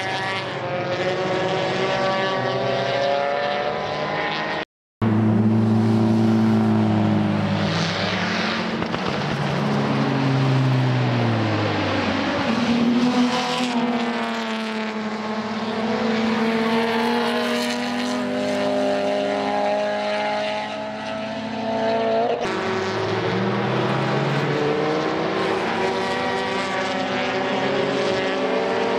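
Racing cars from a GT300 and Toyota GT86 race lapping a circuit at speed, one after another. Their engine and exhaust notes climb through the gears and sweep down in pitch as each car passes. The sound cuts out for a fraction of a second about five seconds in.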